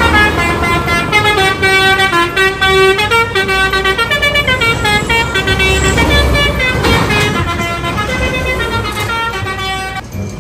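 Bus telolet horn, a set of multi-tone horns playing a tune of stepping notes that stops about ten seconds in.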